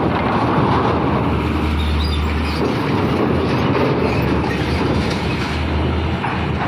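Heavy truck's diesel engine pulling a lowboy trailer loaded with an excavator up onto a ferry's steel loading ramp, with a steady rumble of the trailer rolling over the steel. A deep engine drone swells twice, about two seconds in and again near the end.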